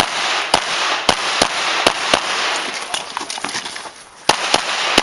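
Springfield Armory XDm 5.25 9mm pistol fired in quick succession: a string of about six shots roughly half a second apart, a pause of about two seconds, then three fast shots near the end.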